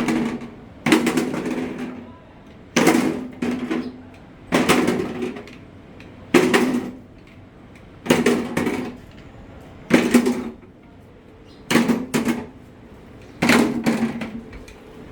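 Repeated metal strikes about every two seconds, each ringing briefly, a few followed by a quick second blow.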